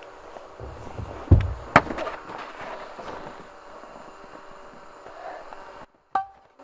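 Faint steady hum of a DJI Mavic Pro quadcopter hovering overhead, with two sharp knocks about half a second apart a little over a second in, the first coming after a short low rumble.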